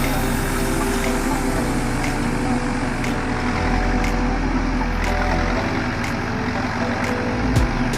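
Heavy diesel engine of construction machinery running steadily, its low note shifting a few times.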